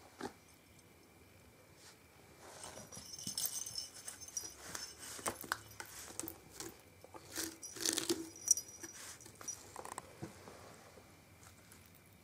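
Kitten scrabbling and batting at toys on a carpeted cat tree: irregular scratches, rustles and light knocks, busiest from about two and a half seconds in until about ten seconds in.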